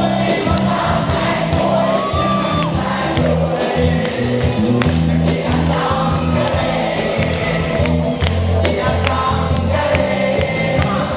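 Background music with singing over a steady, sustained bass line.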